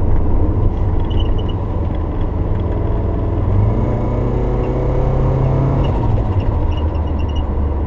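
Subaru Forester's turbocharged engine running under way over a steady low rumble. The engine note climbs gently for a few seconds, then drops about six seconds in.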